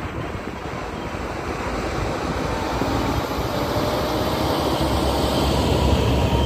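Tracked robot tractor running and working the soil with a rear-mounted rotary spading machine, a steady mechanical noise that grows louder as the machine comes close. Wind buffets the microphone, most in the first seconds.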